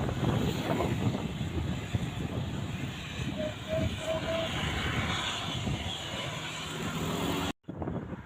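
Heavy road traffic passing close, a steady rush of engine and tyre noise, with four short faint beeps about three and a half seconds in. The sound cuts out abruptly for a moment near the end.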